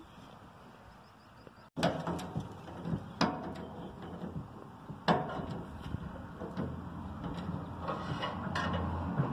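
A few sharp knocks and clunks, the loudest about two, three and five seconds in, over a rustling handling noise, starting suddenly after a quiet opening.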